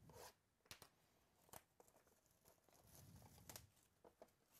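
Faint handling of trading cards and their plastic and wrapper packaging: a few sharp clicks and light crinkling rustles.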